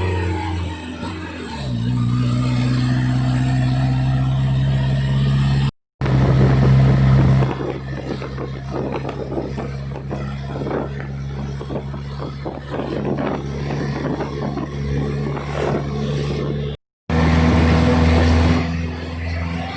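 Small petrol engine running at a steady speed, its pitch dropping over the first two seconds, with the sound cutting out abruptly twice.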